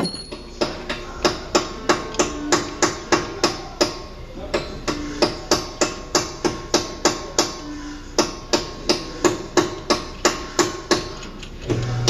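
A fast, steady run of sharp metallic knocks, about three a second, each with a short ring.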